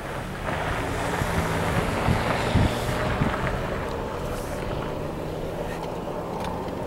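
Wind rushing across the microphone, swelling about half a second in and easing after a few seconds, over the steady low hum of a vehicle engine running.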